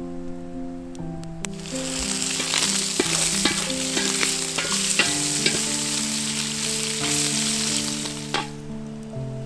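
Food sizzling and frying in a hot pan over a campfire, with crackles, starting about a second and a half in and cutting off near the end. Background music plays throughout.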